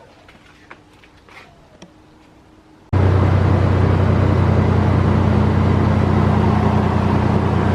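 A few faint clicks, then about three seconds in a vehicle engine is suddenly heard running loudly and steadily.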